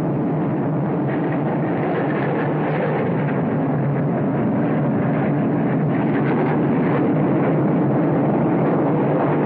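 Loud, steady engine noise.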